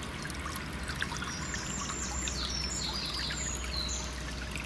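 Shallow stream trickling steadily. A songbird sings a run of short, high, falling notes in the middle.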